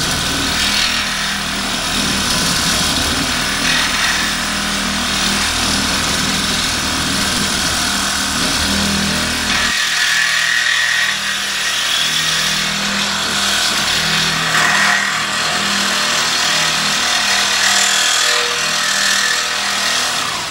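Power tool cutting or grinding into the metal of a truck bed: a steady, loud, harsh noise, with a low hum underneath that drops away about halfway through.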